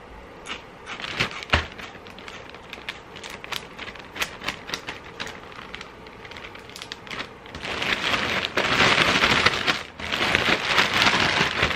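Plastic zip-top bag crinkling, with small clicks as its seal is pressed shut. From about eight seconds in, the bag of sugar-coated Chex cereal (puppy chow) is shaken hard: a loud, dense rattling rustle of cereal pieces inside the plastic, with a brief break near the end.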